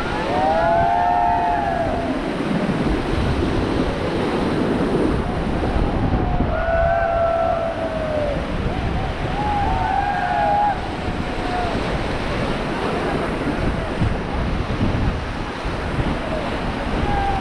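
Rushing whitewater of river rapids around a raft, with wind buffeting the microphone.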